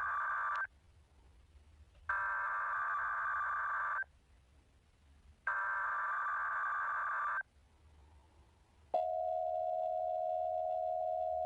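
Emergency Alert System test signal played back pitched down. The buzzing SAME data-header bursts end one burst, then sound twice more, each about two seconds long with short gaps between. About nine seconds in, the steady EAS attention tone starts and holds.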